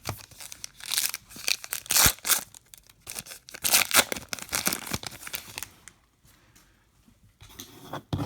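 A trading card pack's wrapper being torn open and crinkled by hand, in a run of sharp crackling rips for several seconds that go quieter near the end.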